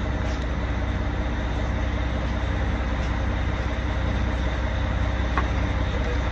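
Fishing boat's engine running with a steady low drone, heard from inside the boat's cabin.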